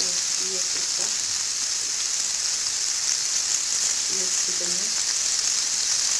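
Raw shrimp sizzling steadily in butter and olive oil in a frying pan.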